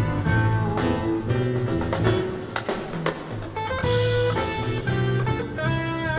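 Live instrumental band playing: electric guitar and keyboard notes over an electric bass line and a drum kit, with a cymbal crash about four seconds in.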